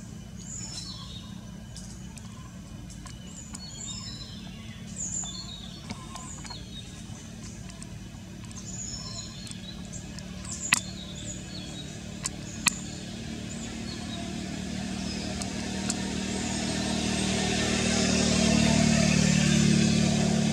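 Outdoor ambience: a steady low engine hum with small birds chirping, a few sharp clicks about halfway through, then a vehicle growing louder over the last several seconds.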